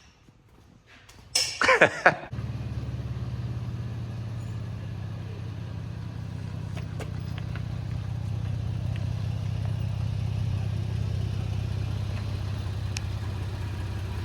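2014 Toyota Tacoma pickup's engine cranking and firing up about a second and a half in, with a brief rise and fall, then settling into a steady idle.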